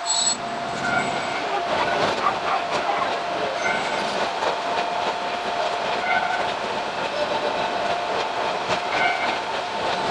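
Running noise of a Sanseki Railway Hokusei Line 762 mm narrow-gauge electric train heard from the cab, with a steady whine and short higher tones every couple of seconds.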